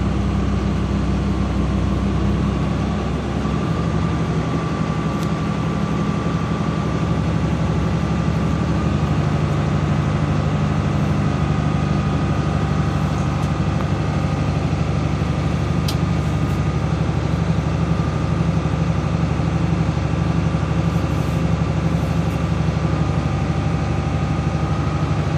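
School bus engine running steadily, heard from the driver's seat. Its speed steps up about three seconds in and again a few seconds later as the accelerator is pressed to build pressure in the air-brake tanks.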